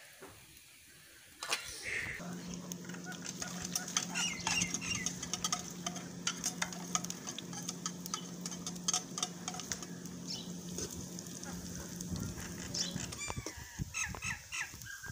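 Fried bitter gourd strips crackling in hot oil in a metal pan while a metal spatula stirs them, over a steady low hum. A few short bird-like chirps come near the end.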